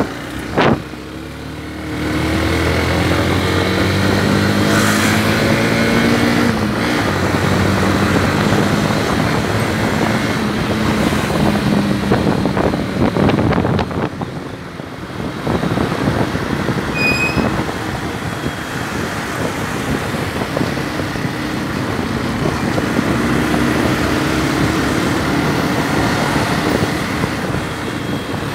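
Yamaha Factor 150 motorcycle's single-cylinder four-stroke engine under way, rising in pitch through a gear a couple of seconds in and again near the end, with steady wind and road noise while riding. A short knock sounds about half a second in.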